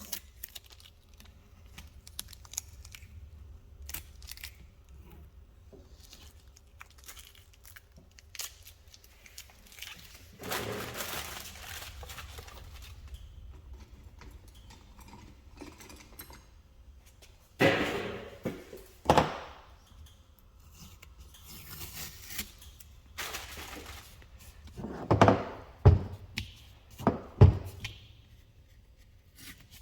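Hands tearing and crumpling masking tape and paper, with scattered small clicks. Bursts of tearing and crinkling come around 11 s and 18 s, and there are several sharp thunks between about 25 and 27 s.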